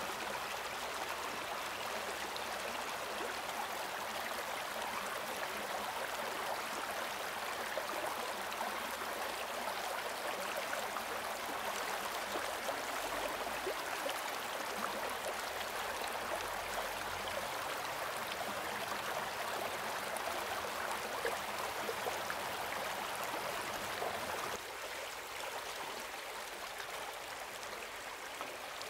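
Stream water running over stones: a steady rushing with scattered small splashes and clicks. It gets a little quieter near the end.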